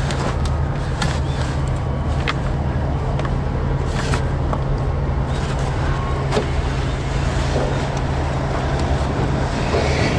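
Steady low hum of an idling vehicle engine, with scattered clunks and knocks as a boat outboard motor and gear are loaded into a car's boot.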